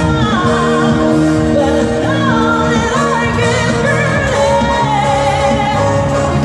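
Live band playing, with a singer's melody winding over held chords.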